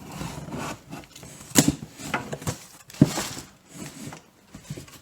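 Rustling, tearing and crinkling of packing material as a parcel is unpacked by hand, with two sharp knocks, about one and a half seconds and three seconds in.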